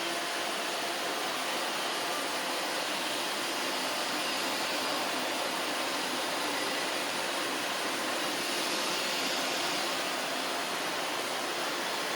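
Roomba robot vacuum cleaners running, a steady, unchanging whir of suction fans and brushes.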